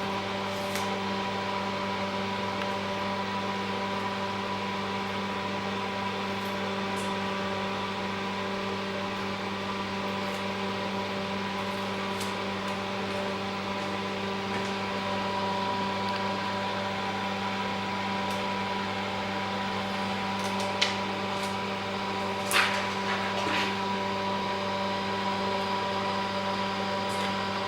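Steady electrical machine hum with several steady tones layered together, with a few light clicks about three-quarters of the way through.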